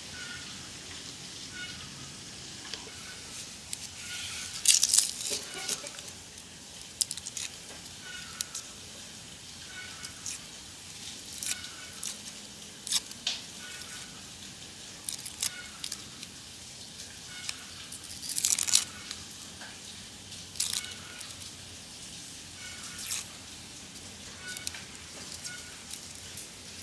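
Dry, papery skins of purple onions crackling and tearing as they are peeled off by hand, in short irregular rustles with two louder spells, about five seconds in and again near nineteen seconds.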